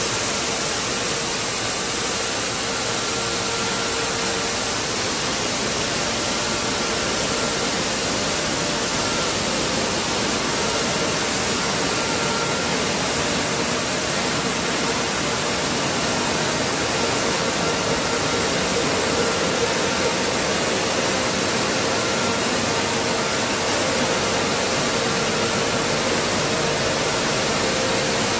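Running stone flour mill plant: a steady rushing hiss of machinery and moving air, with a faint constant hum running through it.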